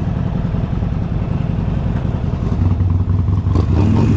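Harley-Davidson Sportster XL1200X's air-cooled V-twin idling with a steady, pulsing rumble, alongside a second motorcycle's engine. The rumble grows louder and deeper about two and a half seconds in.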